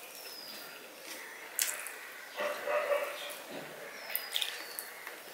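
Eating by hand: fingers mixing rice on a steel plate, then chewing with sharp wet mouth clicks. A short high call that falls in pitch sounds twice in the background, near the start and about four seconds in.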